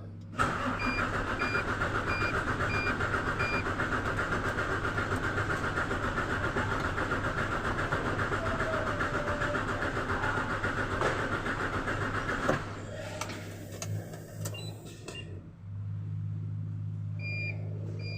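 Hino 700 series truck's E13C diesel engine turning over on the starter motor for about twelve seconds without catching: the crank-only no-start fault. A dashboard warning beeps several times early in the cranking. The cranking stops abruptly and is followed by a few clicks, then a steady low hum with more beeps near the end.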